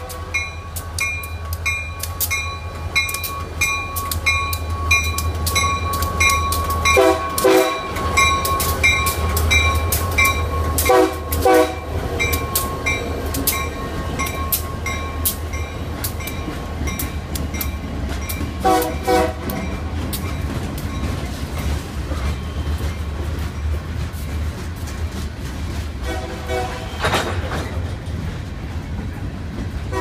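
Union Pacific diesel freight locomotives passing close by with a deep engine rumble, a bell ringing about twice a second and several short horn blasts, followed by freight cars rolling past with wheels clicking over the rail joints.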